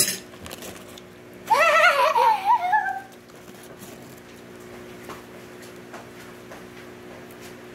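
A girl's high-pitched, wavering squeal of delight lasting about a second and a half, with her mouth full of French fries. A faint steady hum follows.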